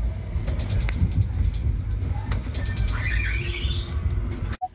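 Steady low rumble of a night train running, heard from inside a couchette compartment, with a few sharp clicks. Near the end a high squeal rises in pitch for about two seconds.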